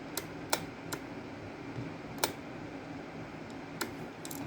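Half a dozen sharp, light clicks and taps spaced irregularly: the electric kettle's switch being turned on and small plastic and metal parts handled while its contacts are tested with a multimeter.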